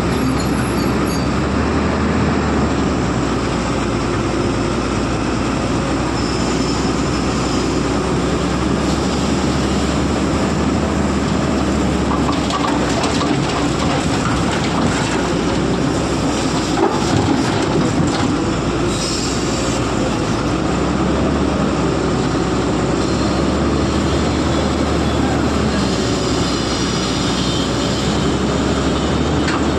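Excavator running steadily under a heavy, constant engine drone, with metallic clanks and brief high squeals now and then.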